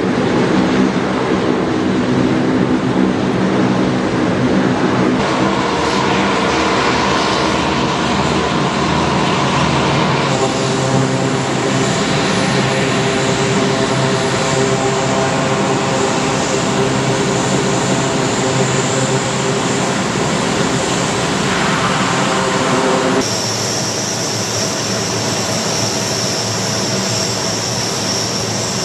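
C-130 Hercules turboprop engines running with eight-bladed propellers turning: a steady drone with a high whine. The sound changes abruptly a few times as the shot cuts from the aircraft taxiing at a distance to close up on the ramp.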